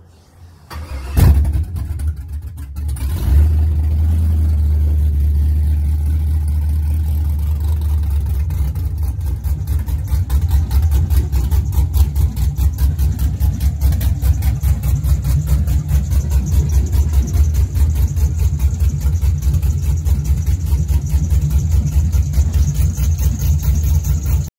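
2001 Chevy Silverado engine starting and idling through long-tube headers and a 3-inch straight pipe, super loud. A short crank about a second in, a rev as it catches and another surge around three seconds, then a steady idle with rapid exhaust pulses.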